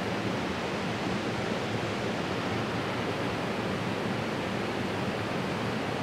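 Small waterfall cascading over rocks into a pool: a steady, even rush of water.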